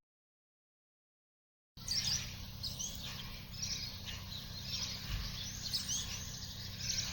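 Silence for nearly two seconds, then small birds chirping: many short, high chirps in quick succession over a steady low background hum.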